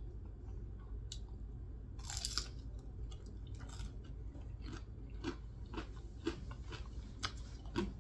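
Close-miked chewing and wet mouth sounds of someone eating pork pot stickers, heard as irregular soft clicks and smacks, with a denser run about two seconds in.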